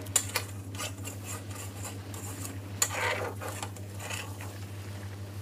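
Long-handled metal spoon stirring and scraping thickening curry sauce in a metal frying pan, with sharp clinks against the pan and a louder stretch of scraping about three seconds in. A steady low hum runs underneath.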